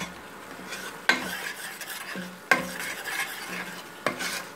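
Steel spoon stirring spice masala frying in oil in a stainless steel pot: a steady sizzle, with the spoon knocking against the pot three times, about a second and a half apart. The ground spices, turmeric, red chilli and garam masala, have just gone into the hot oil and are being fried.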